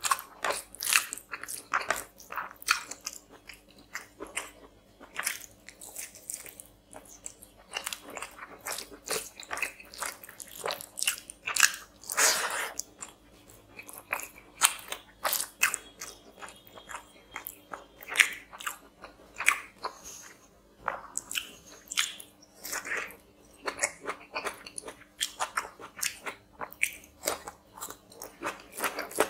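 Close-miked mouth sounds of a man eating chicken curry and rice by hand: chewing, with an irregular stream of short smacks and clicks and one louder crunch about halfway through.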